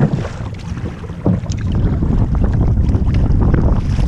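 Wind buffeting the microphone over waves splashing and slapping against a kayak. It gets louder a little over a second in.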